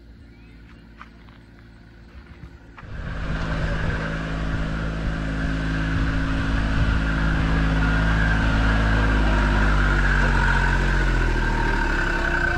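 Ride train's engine idling faintly, then about three seconds in it opens up loudly and runs under load. Its pitch eases down near the end.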